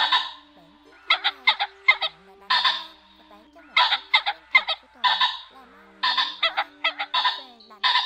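Ring-necked pheasants calling: loud, harsh clucking notes in quick clusters of three or four, each cluster closed by a longer rasping note, repeated three times.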